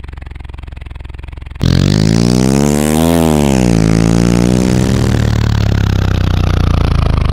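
Vehicle engine sound effect: a low idle hum, then about a second and a half in it revs up loudly, drops back down and runs on steadily, as for a truck pulling away.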